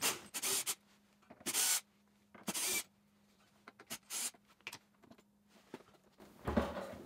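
Cordless drill-driver run in short bursts, about four times, backing out the screws on a fridge door's hinge. A low thump follows near the end as the door is handled.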